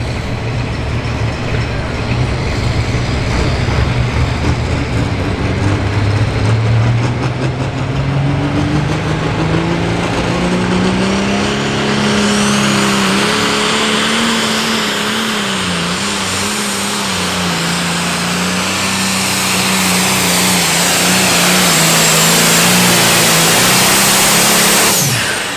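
Turbocharged diesel engine of a John Deere light pro stock pulling tractor under full load, dragging the weight-transfer sled. Its note climbs steeply about a third of the way in, then holds high and wavers, with a high turbo whistle over it; just before the end the engine note falls and the sound drops away suddenly as the pass ends.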